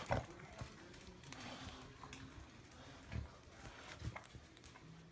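A dog moving about on a hard floor: a few faint, scattered taps and shuffles over quiet room noise.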